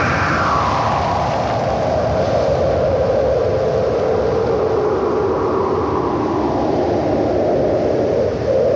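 Loud rushing, wind-like noise from the film's soundtrack. It sweeps down in pitch over the first two seconds or so, holds low and steady, then sweeps back up near the end.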